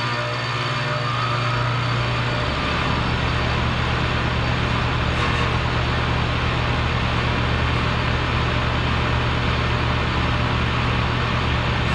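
Compressor running steadily: a continuous low motor hum under a rushing noise, the hum settling slightly lower about two and a half seconds in.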